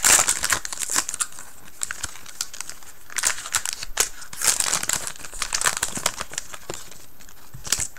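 Foil trading-card pack wrapper crinkling in several short bursts as it is peeled off the cards and crumpled.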